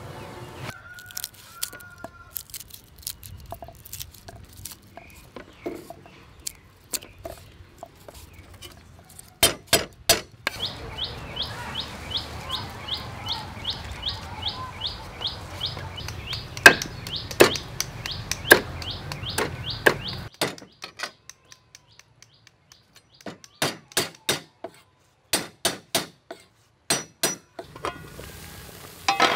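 Food-prep knocks and clicks: a knife striking a wooden cutting board and clinks of metal pots and lids, in several short runs. For about ten seconds in the middle, a high bird chirp repeats about four times a second behind the cutting.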